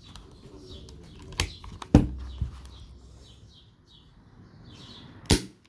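WG C701 CO2 airsoft revolver firing: sharp cracks, the loudest about two seconds in and another near the end, with lighter clicks between. Birds chirp in the background.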